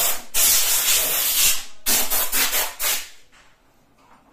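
Rough rubbing noise in several bursts, the longest about a second and a half, stopping about three seconds in.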